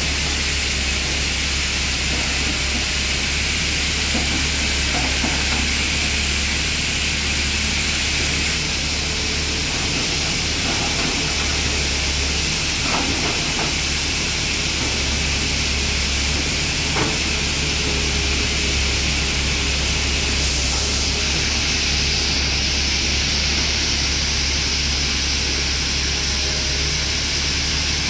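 Tata Hitachi hydraulic excavator working, its diesel engine running steadily under a loud, even hiss, with a few clanks as the bucket digs into the gravel pile.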